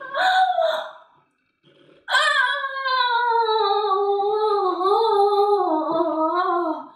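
A woman's voice: a short cry at the start, then from about two seconds in one long, drawn-out moan held for about five seconds, its pitch sliding slowly down with small wavers. It is a comic, exaggerated moan of mock ecstasy.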